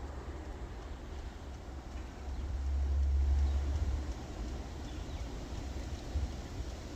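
Snowstorm wind gusting against the microphone: a deep rumble over a steady hiss, swelling into a stronger gust about two seconds in and easing off a second or two later.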